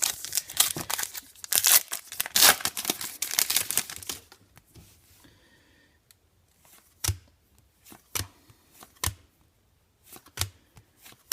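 Crinkling and rustling of a trading card pack's wrapper and cards being handled for about four seconds, then a handful of separate short taps.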